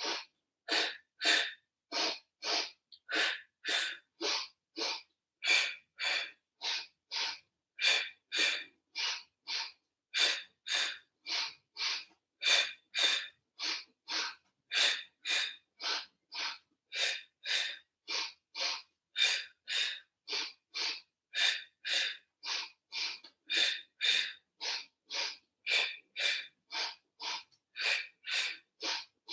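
A woman's short, forceful breaths, about two a second, in the two-in, two-out breathing of a Pilates single leg stretch.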